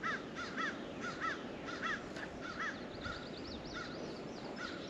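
Birds calling: one repeats a short, arched call about twice a second, and a higher, wavering song joins partway through.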